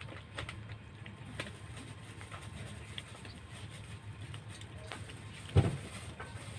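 Kittens eating dry cat food: scattered small clicks of kibble being crunched and pushed about, over a low steady background hum, with one thump about five and a half seconds in.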